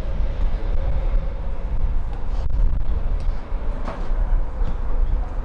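Steady low rumble of outdoor background noise, with a faint short sound about four seconds in.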